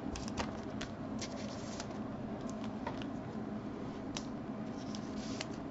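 Trading cards being handled and sorted by hand on a table: faint rustling with scattered small clicks and taps as cards slide and are set down.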